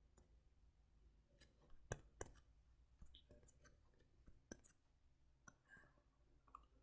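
Near silence broken by a handful of faint, scattered computer mouse clicks, the strongest about two seconds in.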